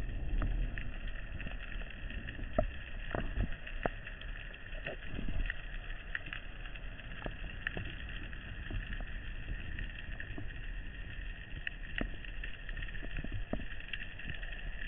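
Underwater ambience picked up by a speargun-mounted camera: a steady hiss with a low rumble and many scattered sharp clicks.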